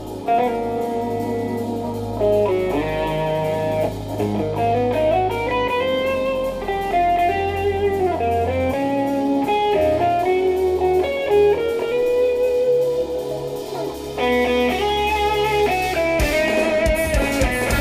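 Instrumental progressive metal played live by a band: an electric guitar melody with bending notes over held bass notes and drums. About sixteen seconds in, the low end breaks into a fast chugging rhythm.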